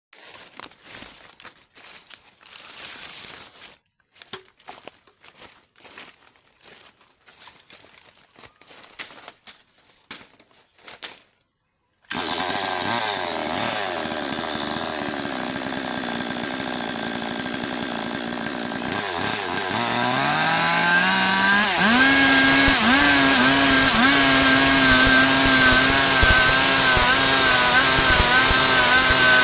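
Faint, irregular rustles and knocks for the first twelve seconds. Then a Stihl MS 382 two-stroke chainsaw comes in abruptly, running at a low steady speed. About twenty seconds in it revs up and holds a higher, louder speed.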